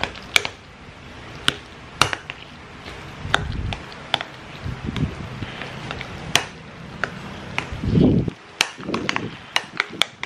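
A kitchen utensil knocking and scraping in a bowl of boiled potatoes and milk being mixed for mashed potato: irregular sharp taps every half second or so, with a couple of duller thuds, the loudest about eight seconds in.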